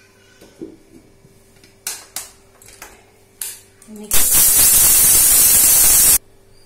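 A few knocks as the steel jar and lid of an electric mixer grinder are set in place. Then the mixer grinder runs in one loud pulse of about two seconds, dry-grinding roasted chana dal, urad dal and spices into powder, and cuts off suddenly.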